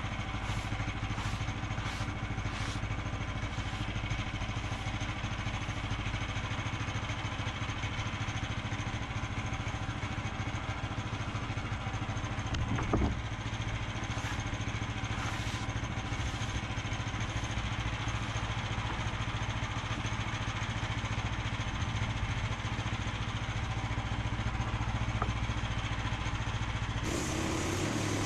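Sawmill's engine running steadily, with a single brief knock about halfway through and an abrupt change in the sound near the end.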